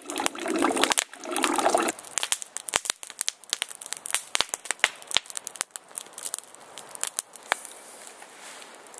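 Coffee poured into a steel camp cup in two short pours, then a wood campfire crackling with many irregular sharp snaps.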